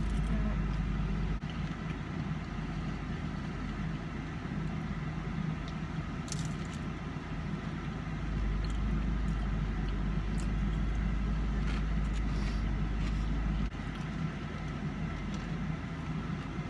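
Steady low rumble of a car running, with a few faint clicks over it.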